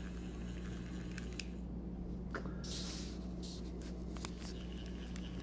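Fingers rustling and brushing against the soft plush fur of a Hasbro FurReal Friends toy dog as it is turned around. There is a burst of rustling about two and a half seconds in and shorter ones after it, over a steady low hum.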